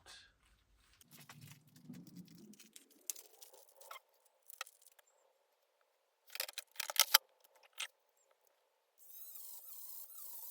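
Small items being handled and rummaged on a workbench: scattered clicks and rustles, loudest in a quick cluster about six to seven seconds in, then a steady hiss near the end.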